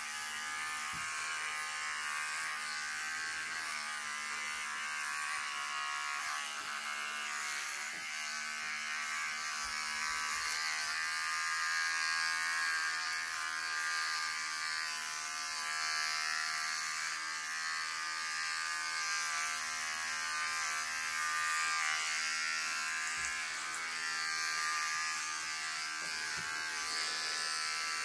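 Cordless electric hair clippers buzzing steadily as they cut through short hair on the sides and back of a head.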